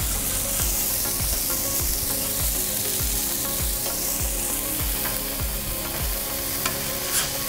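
Ground beef burger patties sizzling steadily on a hot Blackstone flat-top griddle, a metal spatula sliding under them on the steel, with a couple of sharp clicks near the end.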